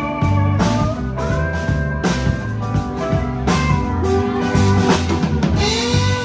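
A live rock band playing an instrumental passage: two electric guitars, an electric bass and a drum kit, the lead line sliding up and down between notes over a steady bass and beat.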